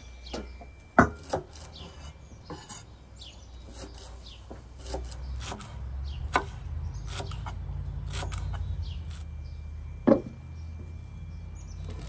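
Irregular sharp wooden knocks and clicks, the two loudest about a second in and near the end, over a low rumble.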